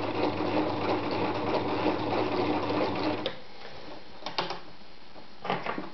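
Privileg Voll-Zickzack Superleicht 360 electric sewing machine sewing a zigzag seam at a steady speed, its motor humming under the rattle of the needle mechanism, then stopping a little over three seconds in. A few short clicks and knocks follow.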